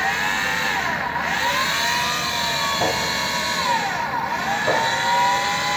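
Electric table power feed motor on a KBC 30VS vertical milling machine, running with a steady whine. Its pitch sweeps down and back up twice as the feed speed changes.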